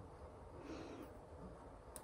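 Near silence: faint room tone, with a soft, short low sound a little past the middle and a small sharp click near the end.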